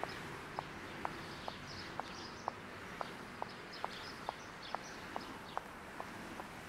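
High-heeled shoes clicking on stone paving at a steady walking pace, about two steps a second.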